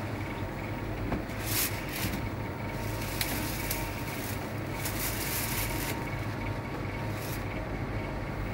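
Thin plastic carrier bag rustling and crinkling in short bursts as large plastic bottles of cider are packed into it, over a steady low hum.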